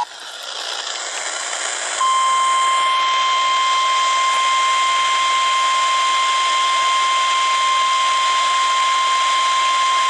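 Weather radio static swelling for about two seconds, then the NOAA Weather Radio 1050 Hz warning alarm tone: a single loud, steady beep that holds on. It signals that a warning, here a severe thunderstorm warning, is about to be read.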